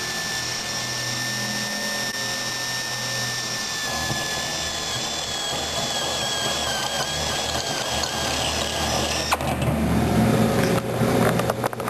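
Drill turning a unibit step bit as it bores a hole through an aircraft's aluminium fuselage rib. It makes a steady high whine that drops a little in pitch and wavers from about four seconds in as the bit cuts, then stops near the end, followed by a few clicks.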